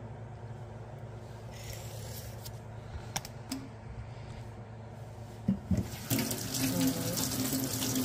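A few short knocks as a plastic wax jar is set down on a countertop, then from about six seconds in a kitchen tap running steadily into a sink as sticky wax is rinsed off the fingers.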